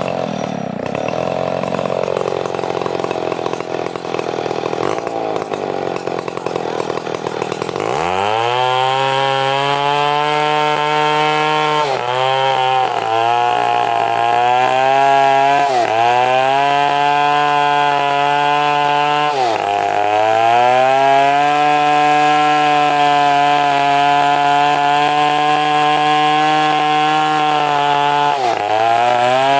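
Stihl two-stroke chainsaw cutting a log lengthwise into planks. About eight seconds in the engine rises to full throttle and runs at a high steady pitch, sagging briefly a few times as the chain bogs in the wood.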